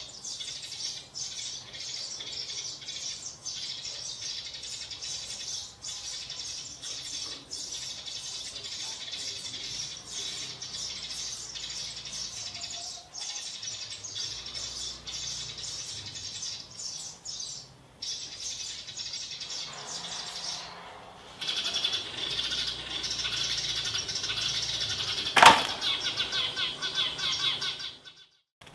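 Many small birds chirping and twittering continuously in a dense chatter that grows louder a few seconds before the end. One sharp snap cuts through near the end.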